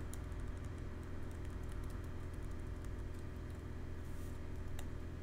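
Typing on a computer keyboard: quick runs of key clicks, denser in the first few seconds and then sparse, over a steady low hum.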